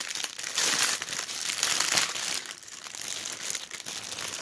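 Packaging crinkling and rustling as an item is handled and unwrapped, in irregular bursts of crackly noise.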